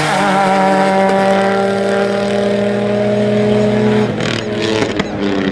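A Subaru Impreza WRX STI and a Ford Mustang launching side by side at full throttle on a drag strip, engines running hard as they pull away. The engine sound thins out about four seconds in, followed by a few sharp clicks.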